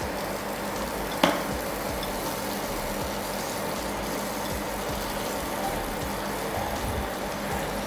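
Butter sizzling steadily in a hot pan as halved pav buns toast in it, with one sharp tap about a second in.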